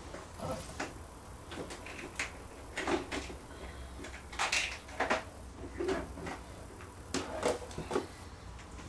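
Irregular clicks and clunks of metal reloading equipment being handled: about a dozen knocks, the loudest a little past halfway, as dies, press parts and loaded 7.62x39 cartridges are moved and set down.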